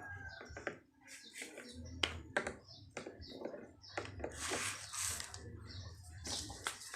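Scattered light clicks and taps, irregular and unevenly loud, with a brief rustle about two-thirds of the way through: small parts being handled during a repair.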